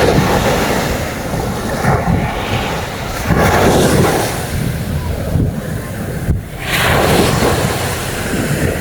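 Sea waves breaking and washing up a beach, the wash swelling and falling every few seconds, with wind buffeting the microphone.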